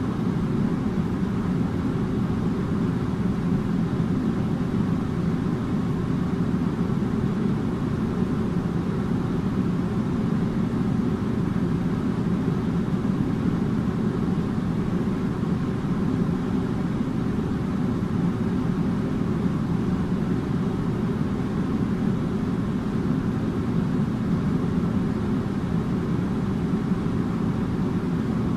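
Air conditioner running steadily: an even, low rushing hum that does not change in level or pitch.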